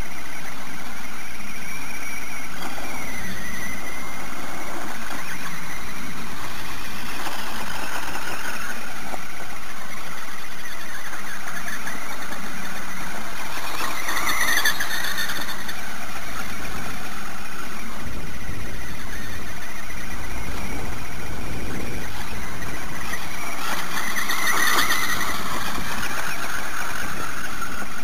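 Tamiya Mad Bull electric RC buggy driving over grass, its small electric motor whining and changing pitch with the throttle. The whine swells as the car passes close, once about halfway through and again near the end.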